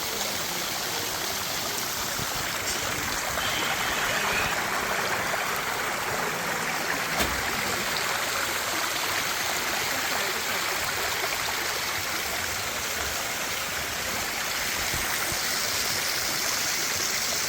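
Water rushing at a small waterfall and its stream, a steady hiss. One sharp click about seven seconds in.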